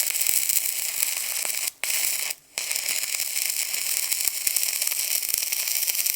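Stick welder arc crackling and sizzling steadily while welding, cutting out briefly twice about two seconds in as the arc breaks and restrikes.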